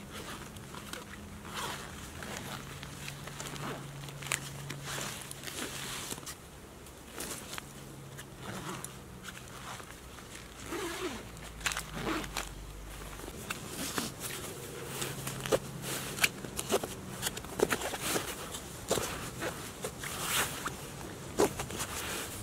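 Osprey 65-litre nylon rucksack being handled and unpacked: fabric rustling, zips pulled and straps and buckles clicking, in an irregular run of small scrapes and clicks that grows busier in the second half.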